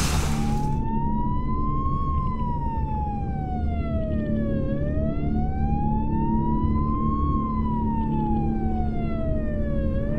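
Emergency vehicle siren wailing, its pitch slowly rising and falling twice, over a low steady rumble.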